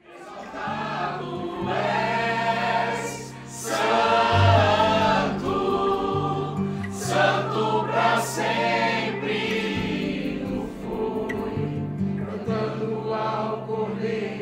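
A group of voices singing a Christian worship song together over steady held bass notes, starting suddenly.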